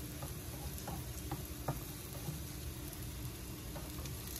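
Pancake batter sizzling softly in a frying pan, with a few faint ticks.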